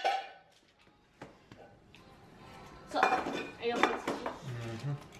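Kitchen clatter on a countertop: plastic food tubs and utensils being handled, one click about a second in, then a burst of clicks and knocks about three seconds in.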